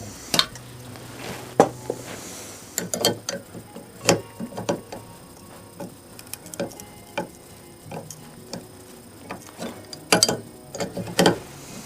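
Irregular metallic clicks and clinks of hand tools working a broken head bolt loose from the cylinder head of a 1947 Johnson TD-20 outboard motor, with a few louder knocks near the end.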